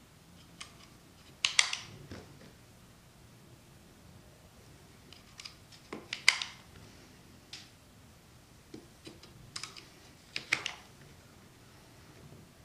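Sharp plastic clicks from a 3D-printed rubber band gun as its hammer is cocked and rubber bands are stretched onto it. The clicks come in three short bursts of a few quick clicks each, about four seconds apart.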